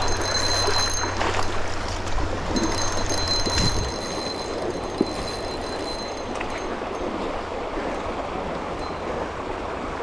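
Steady rushing of river water, with a faint high ringing tone heard twice in the first four seconds.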